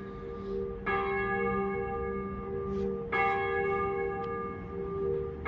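Church bell tolling: a new stroke about every two seconds, about a second in, again about three seconds in and once more at the end, each stroke ringing on and overlapping the hum of the last.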